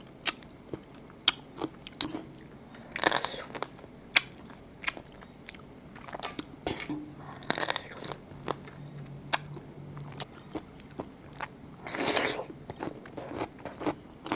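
Close-miked biting and chewing of raw blue swimming crab in a spicy salad: a string of sharp crunches and clicks as shell and meat are bitten, with three longer, rougher sounds spread among them.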